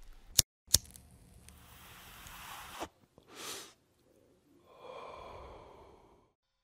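Logo-intro sound effects: two sharp clicks, then soft airy whooshes that swell and fade, the last one carrying a faint ringing tone before dying away.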